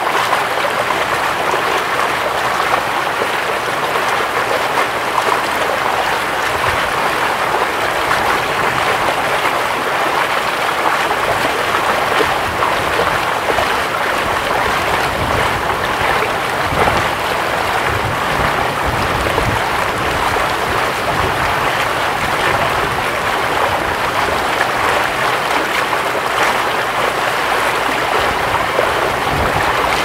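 The almost-frozen Bow River flowing, a steady, even rush of moving water.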